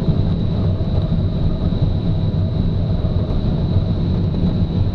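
Steady rush of air around a glider's cockpit in flight, with a low drone underneath.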